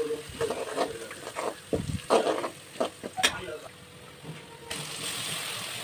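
Spatula scraping and tapping in an aluminium kadai as crushed garlic and whole spices fry in oil, with a light sizzle. The strokes come in the first three seconds; a steadier frying hiss takes over near the end.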